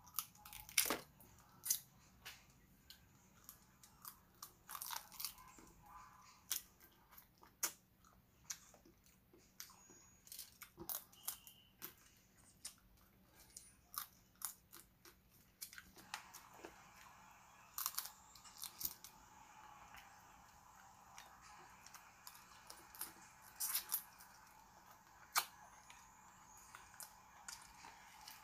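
Close-miked eating sounds of cooked crab: chewing and sucking out crab meat, with irregular sharp clicks and crackles as the shell is bitten and worked apart.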